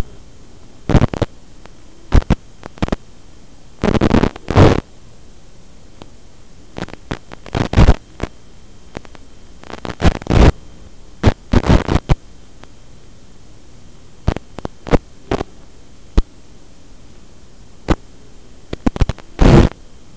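Steady hiss and hum from an analog FPV video receiver's recorded audio channel, broken by about a dozen loud, irregular bursts of crackling static as the drone's video signal breaks up.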